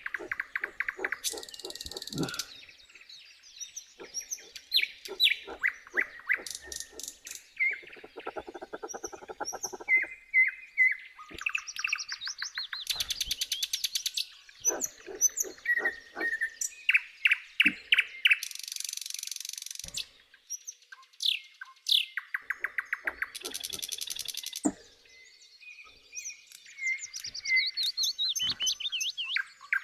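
Several birds singing and calling in turn: short chirps, fast trills and quick whistled notes, with brief pauses between phrases.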